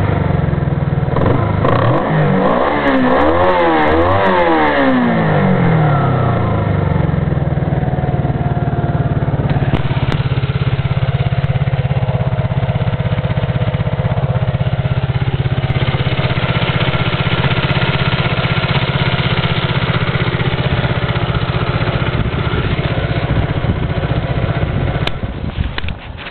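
Honda CB125 motorcycle engine blipped up and down a few times, then settling into a steady idle, which the owner suspects of making a strange noise. The engine sound drops away near the end.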